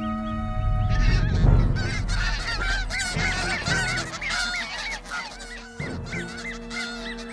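Snow geese honking in alarm at an Arctic fox among their goslings: many short, harsh calls overlapping in quick succession, starting about a second in.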